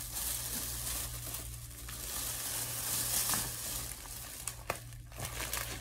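Plastic packaging rustling and crinkling as it is handled, with scattered clicks, over a steady low hum.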